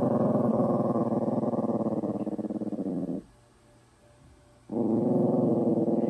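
Small muzzled dog growling in two long growls, with a pause of about a second and a half between them, as its painful, inflamed ear is handled.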